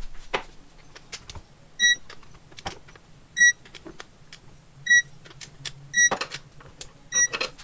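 Digital torque wrench beeping five times, short high beeps about a second to a second and a half apart, each one marking a water pump retaining bolt reaching its 12 Nm (104 in-lb) torque setting. Light ratchet clicks come between the beeps.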